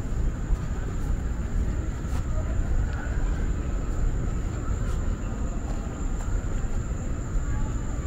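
Outdoor ambience on a walk: a steady low rumble with faint distant voices and a constant thin high-pitched tone.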